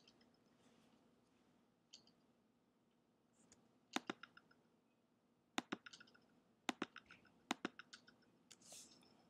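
Computer mouse clicking: about four sharp clicks, each with a few lighter ticks trailing after it, as faces of a 3D model are selected one by one. A faint steady low hum lies underneath.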